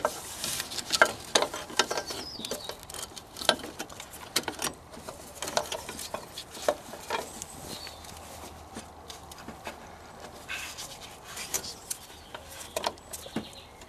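Gloved hands working the fuel hoses and metal bracket around a diesel fuel filter: irregular small clicks and light knocks of plastic and metal parts, with rubbing. It is busier in the first few seconds and again near the end.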